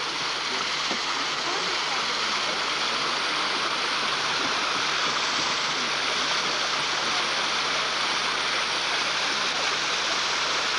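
Small waterfall rushing steadily over rocks, an even, unbroken splashing hiss.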